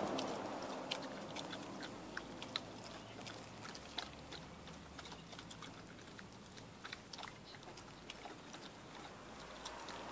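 Dogs eating from their food bowls: faint, irregular crunching and clicking of chewing.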